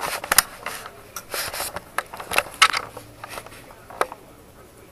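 Paper catalogs being handled, with rustling, scraping and a few sharp knocks or page snaps.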